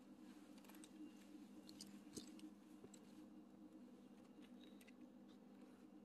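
Near silence: a faint steady low hum with a few faint, scattered clicks.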